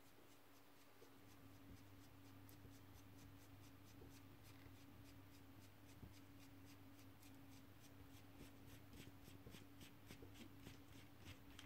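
Faint, quick metallic ticking, about four ticks a second, growing slightly louder, as the locknut and cone of a Sachs Torpedo coaster-brake hub are turned off the threaded axle by hand, over a low steady hum.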